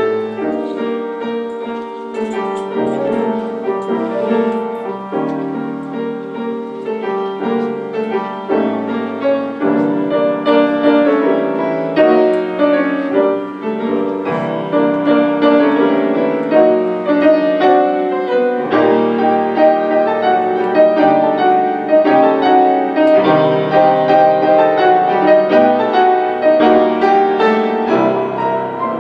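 Classical piano duet on grand piano: dense chords and fast runs played without a break, growing louder about ten seconds in.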